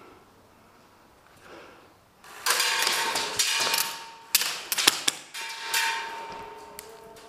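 Airsoft guns firing in a skirmish: a rattling burst of about two seconds, a few sharp separate cracks, then a shorter burst that fades out.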